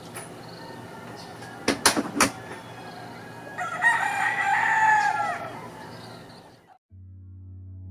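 A rooster crows once, a drawn-out call about four seconds in, after three sharp knocks a couple of seconds in. Near the end the sound cuts to background music with steady low synth tones.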